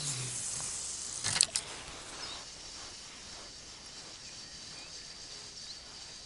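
Spinning rod and reel being handled: rustling, then two sharp clicks about a second and a half in. After that, quiet open-air ambience with faint high chirps.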